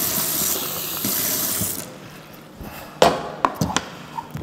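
Tap water running into a sink for about two seconds, then shut off. About three seconds in there is a sharp knock, followed by a few lighter clicks.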